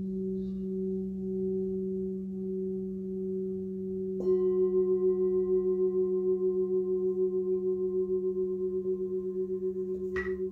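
Brass singing bowls ringing with a low, steady hum. About four seconds in, a bowl is struck with a mallet and rings out with a pulsing, wavering beat as it slowly fades. Near the end comes a short, bright metallic tap.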